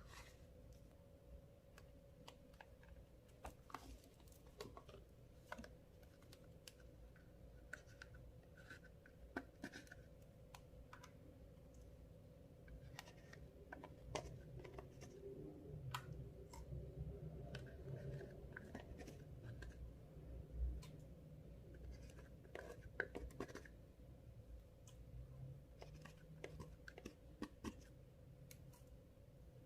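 Faint, irregular sticky clicks and crackles of clear slime being kneaded and stretched by hand, over a faint steady hum.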